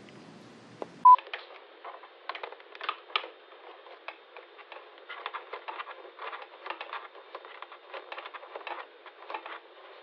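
One short, loud beep about a second in, then thin, tinny-sounding small clicks and scrapes of fingers working a coaxial cable connector on the back of a television.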